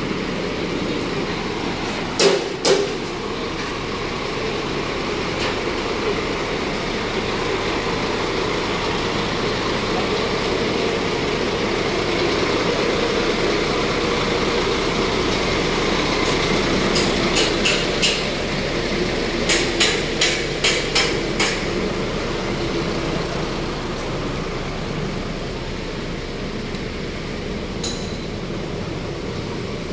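Steady travelling noise from a vehicle on the road. Two sharp clacks come a couple of seconds in, and a quick run of about nine clacks comes a little past the middle.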